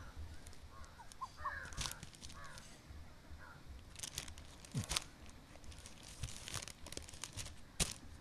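Dry twigs and leaves crackling and rustling faintly as they are handled, in a scattered run of sharp clicks that thickens in the second half. A few short bird chirps come in the first couple of seconds.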